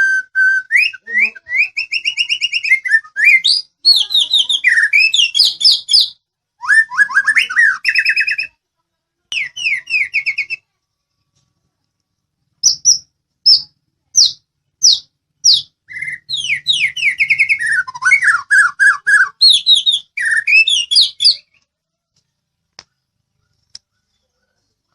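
White-rumped shama of the Medan type singing: long varied phrases of rapid trills, rising and falling whistles and chattering notes. After a short pause about ten seconds in comes a run of single sharp sweeping notes, then more trilled phrases, and the song stops a few seconds before the end.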